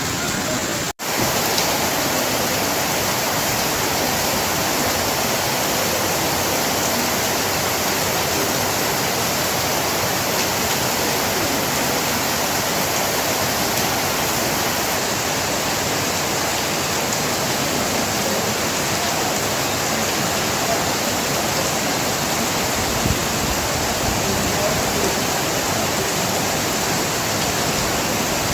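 Heavy rain falling, a steady, dense hiss, with a brief cut in the sound about a second in.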